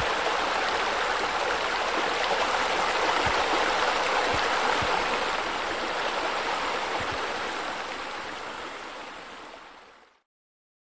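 Steady rush of splashing, flowing water, as from fountains and waterfall spillways. It fades out over the last few seconds and stops about ten seconds in.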